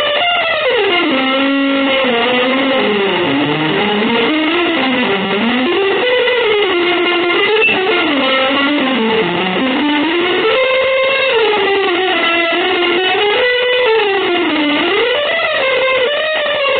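Electric guitar playing one sustained line that slides continuously up and down in pitch, bending and swooping without a break rather than stepping between separate notes.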